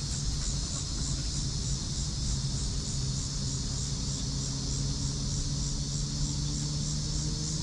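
Insects chirping in a steady high chorus, pulsing about three times a second, over a steady low hum.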